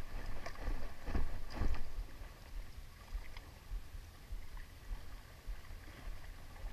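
Small waves lapping against rocks at the water's edge, under an irregular low rumble of wind on the microphone, with a few soft knocks in the first two seconds.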